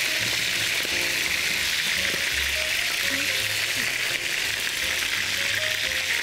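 Pieces of lamb sizzling steadily as they fry in a frying pan, moved about with a fork.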